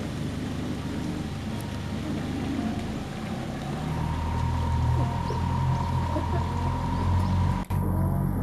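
Cruise boat's engine running steadily, growing louder about halfway through, with a momentary dropout near the end.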